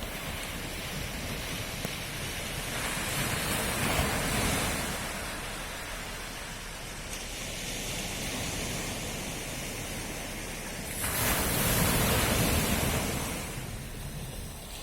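Sea waves breaking and washing on the shore, a steady hiss of surf with two larger waves, the bigger one about three quarters of the way through.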